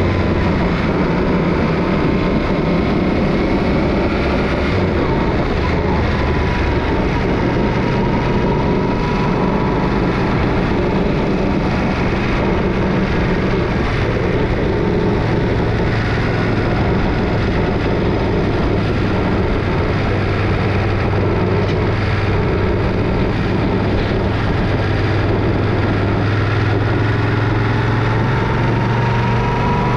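Yamaha Ténéré 700's parallel-twin engine running while under way, with steady wind and road noise over it. The engine note shifts as the throttle changes and rises near the end as the bike picks up speed.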